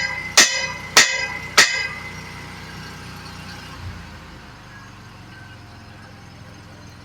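Hammer blows on steel, three ringing strikes about 0.6 s apart, ending the run of hammering in the first two seconds. Then only a steady low hum.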